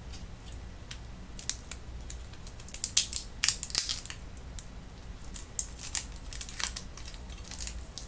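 Protective plastic film being peeled off a new graphics card: an uneven string of short crackles and crinkles, busiest around the middle.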